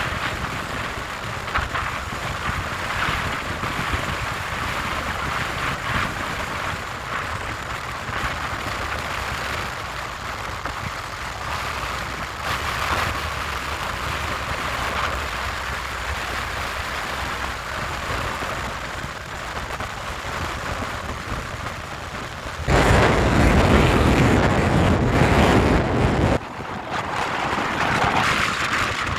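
Strong sea wind rushing across the microphone, a steady hiss and rumble. Near the end a heavy gust buffets the microphone for about four seconds, then drops away suddenly.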